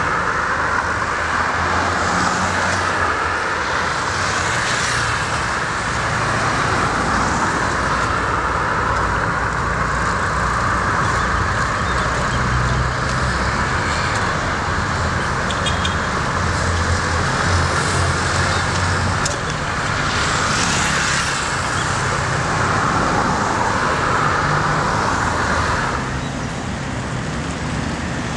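Steady road traffic: passing cars with tyre noise over a low engine hum, a few vehicles swelling louder as they go by. The sound drops a little near the end.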